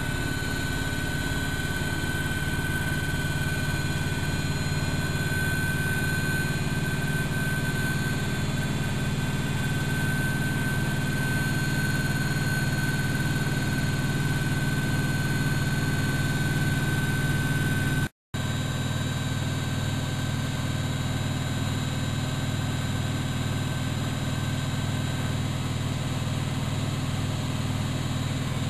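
Bauknecht WAK7760 washing machine running steadily: a high, even motor whine over a low hum, both holding one pitch. The sound cuts out for an instant about 18 seconds in, and the whine fades somewhat later on.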